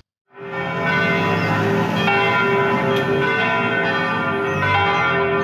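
Several church bells ringing together, their many tones overlapping and ringing on, starting just after a moment of silence.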